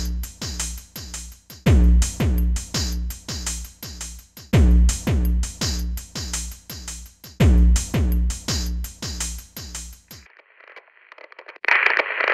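Electronic outro music with a steady drum-machine beat, a heavy bass thump about every three seconds and lighter pulses between, stopping about ten seconds in. After a short faint stretch, a louder burst of crackling, static-like noise comes in near the end.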